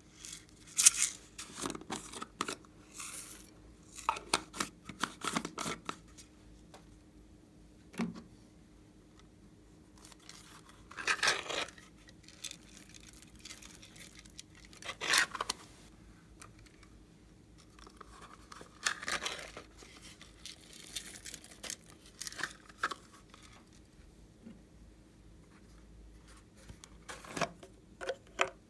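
Hands handling small plastic containers and a foil packet, opening them and tipping glitter and sprinkles into glass trays of slime: scattered short rustles, clicks and scrapes, a few louder ones standing out.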